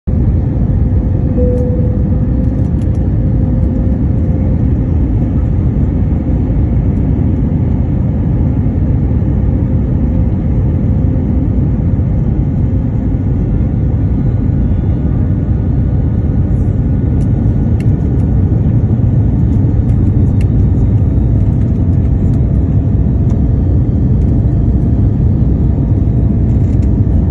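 Airliner cabin noise on a landing approach: a steady, loud rumble of jet engines and airflow, with a faint steady whine that shifts slightly higher about two-thirds of the way in.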